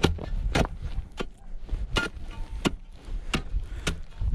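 Steel ice spud bar chipping into lake ice in steady repeated strikes, about seven sharp impacts, each a little under a second apart.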